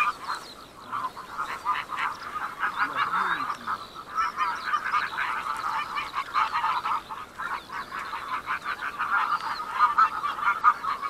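A flock of wild geese honking, many short calls overlapping in a continuous chatter.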